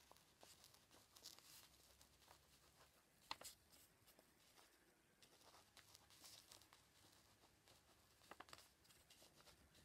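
Near silence, with faint scratching of a pen writing on paper and a few light clicks, one about three seconds in and another near the end.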